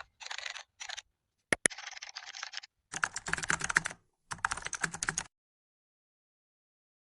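Computer keyboard typing sound effect: a few short bursts of key clatter, two sharp clicks about a second and a half in, then two runs of rapid key presses, each about a second long.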